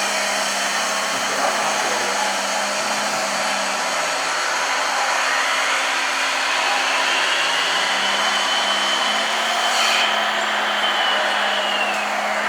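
Electric motors of radio-controlled model construction machines whining over a steady hiss and hum. The whine rises in pitch about halfway through, holds, and drops again near the end, with a single click just before.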